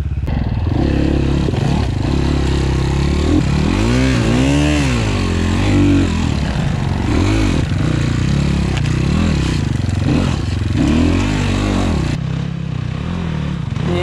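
Engines of 250cc enduro dirt bikes revving up and down repeatedly, the pitch rising and falling every second or so, with some clatter.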